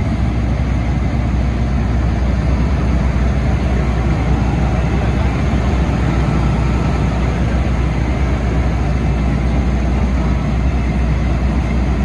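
Engine of a truck-mounted water well drilling rig running steadily at a constant speed, with a deep low hum.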